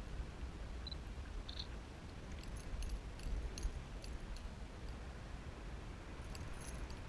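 Steady low wind rumble on the microphone high in the air, with two short high beeps about a second in and scattered small clicks in the middle and near the end from a handheld camera being handled.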